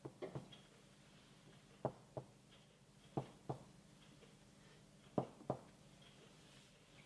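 Chest percussion over a man's back: a finger striking the middle finger of the other hand laid flat on the ribs, in four pairs of quick taps about every one and a half seconds. The chest is normally resonant to percussion.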